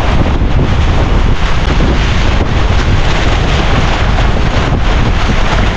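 Strong wind buffeting the microphone: loud, steady wind noise, heaviest in the low end.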